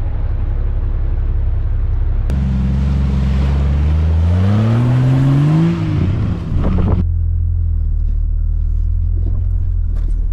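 Jeep Grand Cherokee ZJ engine driving, with a steady low rumble; about halfway through the engine revs up in a rising pitch, then drops back.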